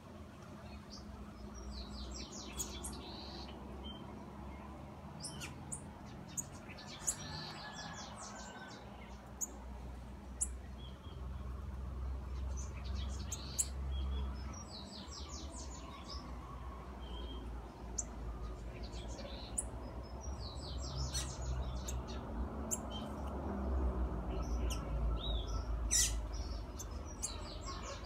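Small songbirds chirping: short, quick high-pitched trills and twitters that come every few seconds, over a low steady rumble in the background.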